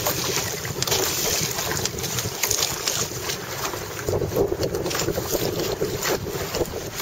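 Strong wind buffeting the microphone while a Hobie Tandem Island sailing kayak moves under sail through choppy water, with water rushing and slapping along the hull. The noise is rough and uneven throughout, with a fuller rushing sound from about four seconds in.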